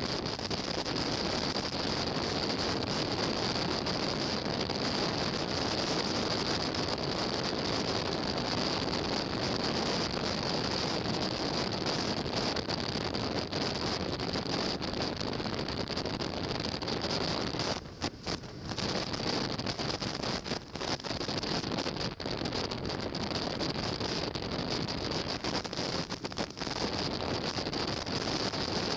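Steady wind rush on the microphone of a camera mounted on a moving motorcycle, mixed with road and engine noise at cruising speed. The noise dips briefly about two-thirds of the way through.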